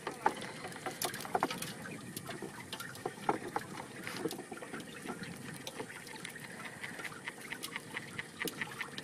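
Wet, irregular clicks and rustling of hands picking through a plastic basin heaped with freshly caught small fish, shrimp and snails.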